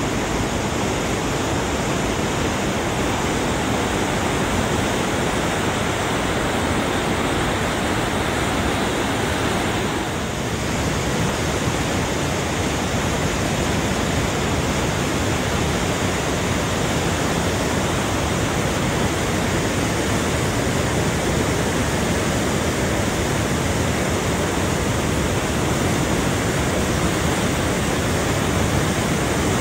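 Fast mountain river rushing through rapids and a narrow rock gorge: a steady, unbroken roar of whitewater that dips slightly for a moment about a third of the way in.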